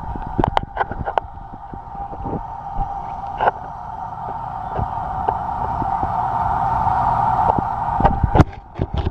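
Water running steadily into a bowl, growing louder through the middle and easing off near the end, with scattered clicks and knocks from handling.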